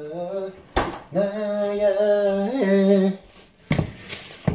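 A man singing a melody in long held notes, with a single sharp knock about a second in and a couple of short clicks near the end.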